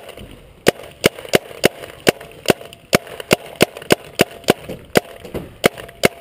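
Paintball marker firing a rapid string of sharp shots, about three a second, with a short pause about five seconds in.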